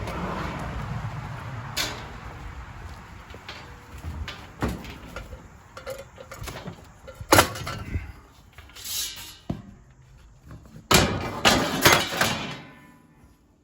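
Scattered knocks, clunks and clatter of junk and scrap being handled and set down, with a loud bang about seven seconds in and a burst of clattering near the end.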